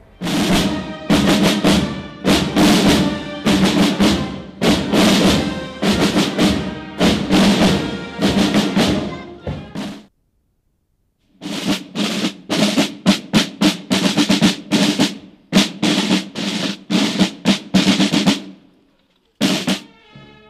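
Marching snare drums beating a fast cadence with rolls. They cut off for about a second halfway through, start again, and end on a single stroke.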